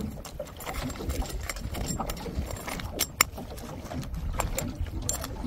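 A metal ladle stirring in a metal cooking pot, with small scrapes and clinks and one sharp clack about three seconds in, over a low steady background rumble.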